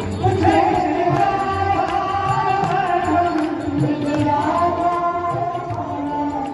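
A Hindu devotional aarti hymn: a singing voice holding long, gliding notes over a steady drum beat.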